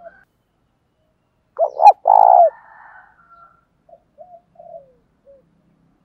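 Spotted dove cooing: a loud call about two seconds in, two short notes running into a longer one, followed by a few faint short coos.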